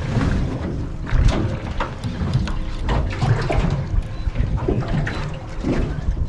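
Water slapping and splashing against the hull of a small boat drifting at sea, with irregular splashes over a heavy low rumble of wind on the microphone.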